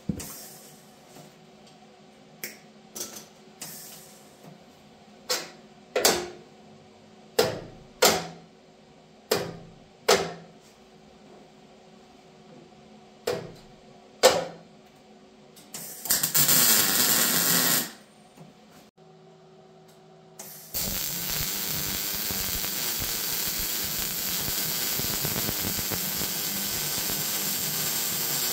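Arc welding on a steel truck frame rail: a short two-second weld burst, then from about two-thirds of the way in a continuous crackling hiss as a bead is run to weld a cap plate onto the frame. Before that, a dozen or so short sharp sounds, each dying away quickly.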